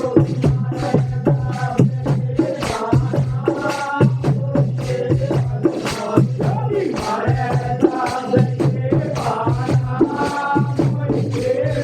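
Hindi devotional bhajan music with a steady percussion beat and a melody over a low drone.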